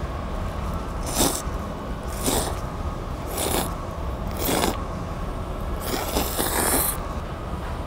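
Cold naengmyeon noodles slurped in five loud slurps about a second apart, the last one longer, over a low steady background hum.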